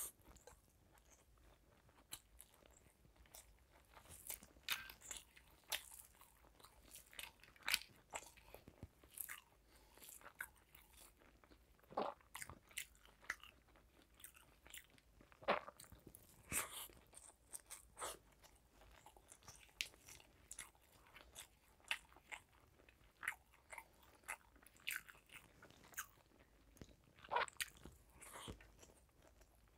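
Close-miked chewing of rice mixed with fried bitter gourd, eaten by hand, with faint irregular crunches and clicks.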